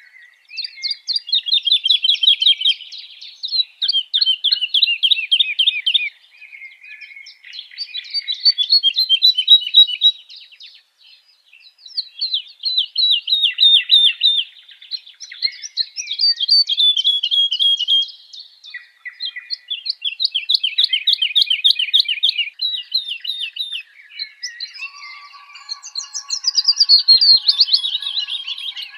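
Alexandrine parakeet calling in rapid trains of short chirps, several a second, in bouts of two to four seconds separated by brief pauses.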